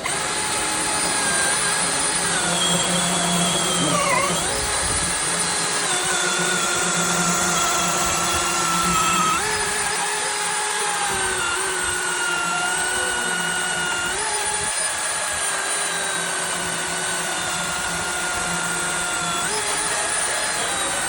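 Milwaukee M18 FUEL dual-battery chainsaw's brushless electric motor and chain running at high speed with a steady whine. Its pitch shifts several times and dips briefly about four seconds in, as under load.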